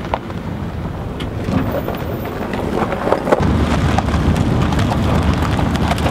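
Pickup truck driving across lake ice towing a fish-house trailer: a steady low rumble of engine and tyres with wind buffeting the microphone, getting louder about three and a half seconds in, with scattered clicks and crackles.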